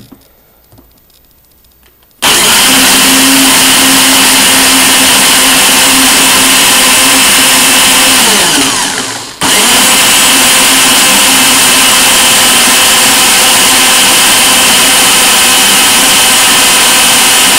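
Electric countertop blender switched on about two seconds in, running steadily as it blends germinated beans in water. About eight and a half seconds in its motor winds down with a falling pitch, then it starts again a second later and runs on.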